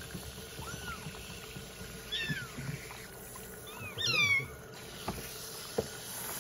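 Young kittens mewing in short, high, falling cries, a few times, the loudest about four seconds in, over a steady hiss of running shower water during their first bath.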